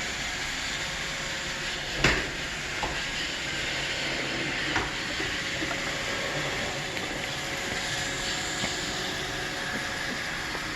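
Roomba robot vacuum running with a steady whirring hum, with a sharp knock about two seconds in and a lighter one a few seconds later.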